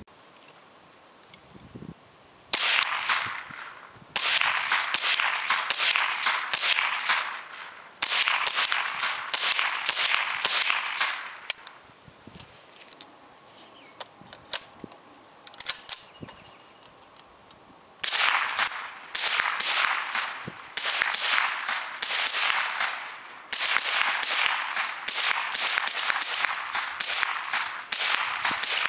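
Armalite M-15A2 semi-automatic rifle in .223/5.56 firing rapid strings of shots, several a second, each shot trailing into an echo. The firing stops for about six seconds midway, then resumes in two more fast strings.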